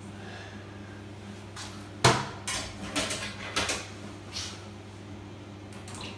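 A Miele front-loading washing machine being handled: one loud clunk about two seconds in, then a few lighter clicks and knocks from its door and controls, over a steady low hum.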